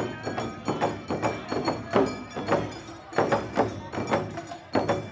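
Awa Odori festival band playing: large hand-held taiko drums struck in a steady, driving rhythm of about two to three beats a second, with metallic clanging and a pitched melody line over the drums.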